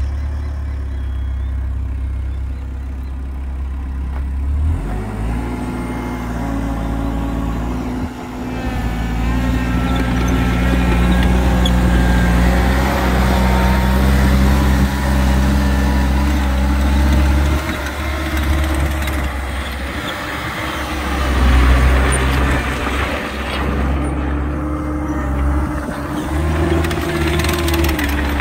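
CAT 247B2 compact track loader's diesel engine running close by, its engine speed changing several times, with a step about five seconds in.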